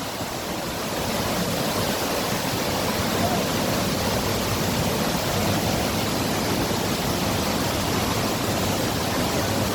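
Waterfall rushing: a loud, steady wash of falling water with no change.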